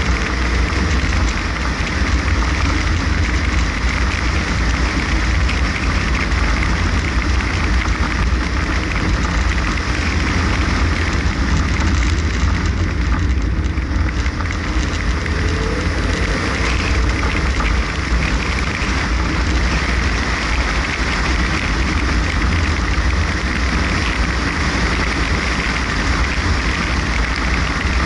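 Car driving along a narrow lane: steady engine and tyre noise on the road surface, with a heavy low rumble and a hiss that do not let up.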